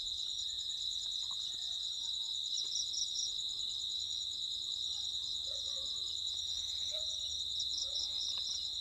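Insects chirping in a steady, high-pitched, pulsing chorus, with a few faint clicks.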